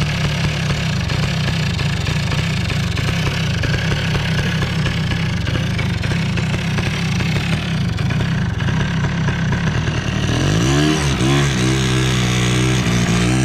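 Polaris Sportsman 90's 90cc two-stroke engine running steadily on its cleaned and reinstalled original Mikuni carburetor. Music comes in about ten seconds in.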